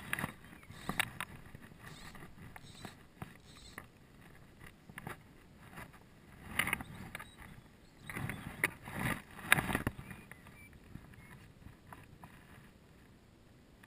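Scattered rustling and brushing noises from an angler's arm and jacket moving close to a body-worn camera while fly casting, with the strongest bursts in the middle of the stretch, over a quiet background.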